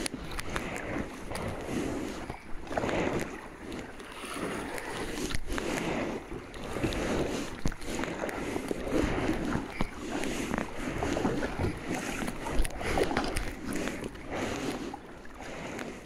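Kayak paddle strokes through calm water: a splashing swish about every second or so, with water sloshing along the plastic hull close by.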